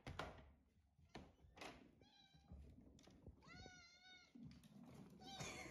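A cat meowing faintly, three times: a short meow about two seconds in, a longer wavering one around three and a half seconds in, and another starting near the end. A soft knock at the start as the door is opened.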